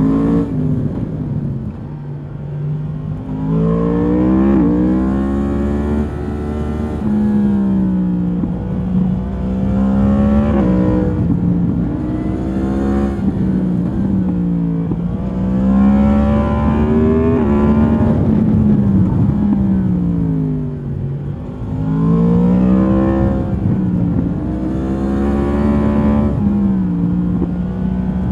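2022 Yamaha MT-10's crossplane inline-four through its stock exhaust, accelerating and slowing again and again while being ridden. Its pitch climbs in several sweeps, each cut by a sudden drop at the gear changes, then falls away as the throttle closes.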